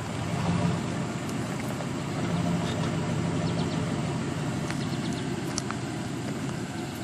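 Pickup truck engine running steadily at low revs as the truck creeps forward under tow-rope load.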